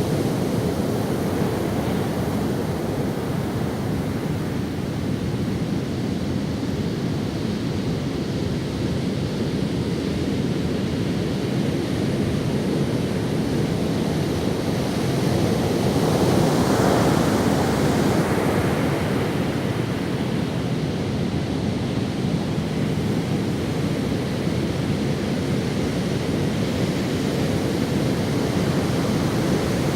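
Ocean surf washing onto a sandy beach, a steady wash of waves with one wave breaking more loudly about halfway through.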